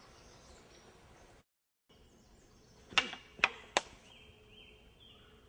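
Two-handed swords clashing in sparring: three sharp clacks in quick succession about three seconds in.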